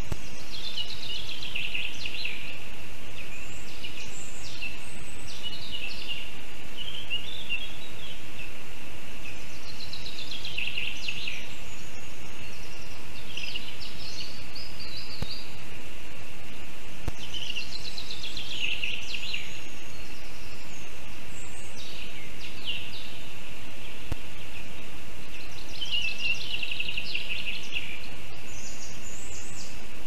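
A forest songbird sings a short, falling song phrase, repeated roughly every eight seconds, over a steady hiss and a constant high tone from the nest-camera microphone.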